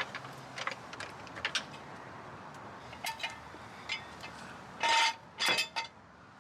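Scattered metallic clicks and clinks from a floor jack and jack stands being positioned under a car, with two louder clanks about five seconds in.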